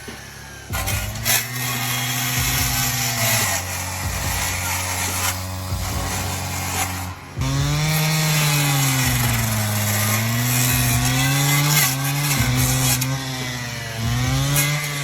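An engine-driven stump-cutting tool runs and cuts into burnt stumps. Its engine pitch holds steady at first, then dips and recovers repeatedly in the second half as the cutter loads up, over a constant rasp of cutting.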